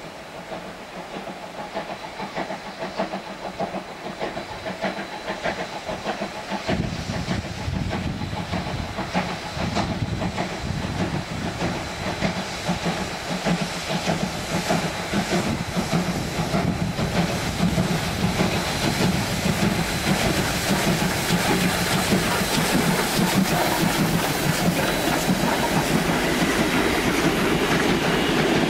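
Victorian Railways A2 class 4-6-0 steam locomotive 986 hauling a passenger train, its steam exhaust beats and hiss growing steadily louder as it approaches. Near the end the carriage wheels clatter over the rail joints as the train passes.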